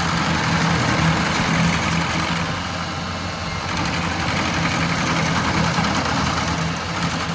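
An engine running steadily, with a rushing noise over it that swells twice.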